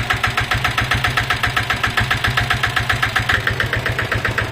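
A Royal Enfield Diesel Bullet's single-cylinder diesel engine idling with a steady tak-tak-tak knock, about six to seven knocks a second. The knock is piston slap from a worn piston or a worn cylinder wall.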